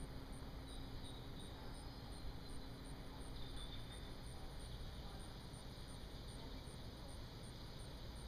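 Faint summer garden ambience: a faint high insect chirp repeating evenly, about three times a second, over a low steady rumble.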